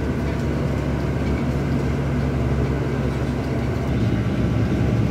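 Airport apron shuttle bus running, heard from inside its cabin: a steady, loud low engine drone.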